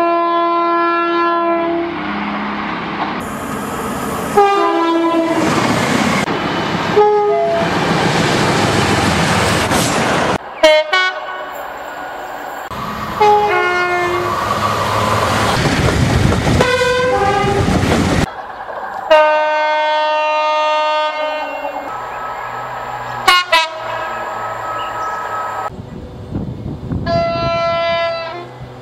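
A string of British train horns sounded by passing trains, several short recordings cut together: repeated horn blasts, many of them two-tone horns stepping between a higher and a lower note. Between and under the blasts runs the rushing noise and wheel clatter of trains going by.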